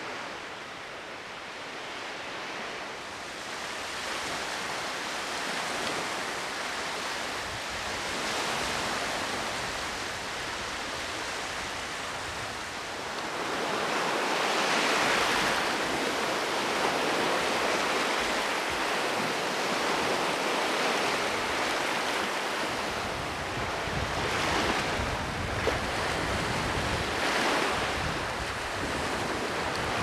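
Baltic Sea surf washing onto a pebbly beach, a steady rush of small waves that swells louder about halfway through and surges again near the end, with wind rumbling on the microphone in the later part.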